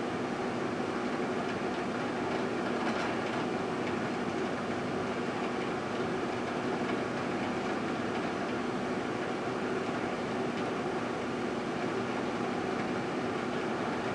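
Microwave oven running with a steady hum while it heats a cup of yoghurt.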